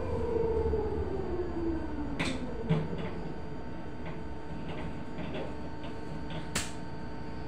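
Electric bus's traction motor whine gliding down in pitch as the bus slows to a stop, ending in a low clunk about three seconds in. Then a steady electrical hum while it stands, with scattered sharp clicks, the strongest about two seconds in and near the end.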